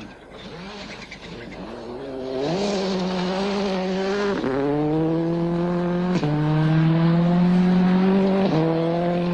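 Ford Focus WRC rally car's turbocharged four-cylinder engine running at high revs at full speed on a gravel stage. The note comes in loud after a couple of quieter seconds, falls sharply at two upshifts about four and a half and six seconds in, then jumps back up near the end.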